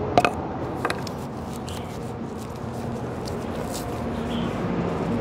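A few sharp hammer taps on rock in the first second, then a steady rumbling noise that slowly grows louder.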